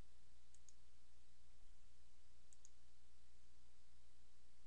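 Computer mouse button clicked twice, each a quick press-and-release double click, over a steady low hum and faint hiss.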